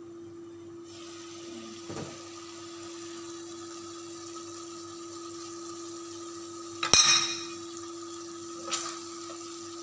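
Thickened sauce with chicken simmering in a pan over a steady hum. A metal utensil knocks sharply against the pan about seven seconds in, with lighter knocks near two and nine seconds.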